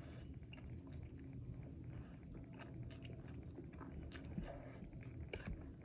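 Close-miked eating: a person chewing and biting food, with many small wet mouth clicks over a low steady hum.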